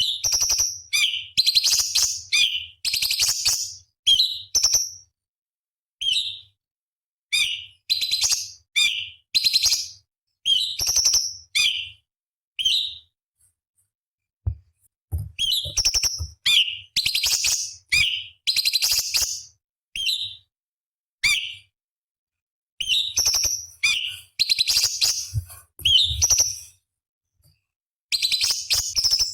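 Orange-bellied leafbird (cucak cungkok) singing: short phrases of sharp, rapid high notes and chatter, one after another with brief silent gaps, pausing longer about halfway through.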